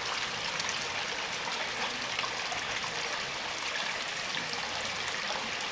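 Steady trickle of running water into a koi pond.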